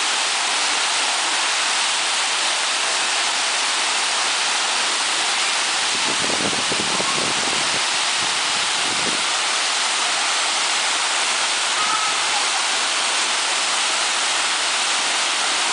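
Waterfall rushing in a steady, loud hiss of falling water.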